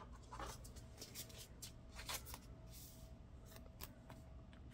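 Faint rustling and a few light clicks of a photocard being handled and slid into a clear plastic binder-page pocket.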